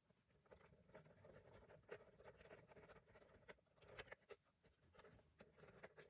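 Faint, irregular clicking and scraping of a ratcheting screwdriver with a Phillips bit turning out dashboard panel screws.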